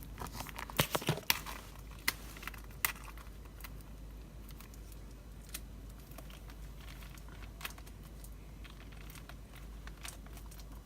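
Calendar packaging being handled and pried at, crinkling with sharp clicks: a cluster in the first second and a half, then only an occasional click. The package won't come open.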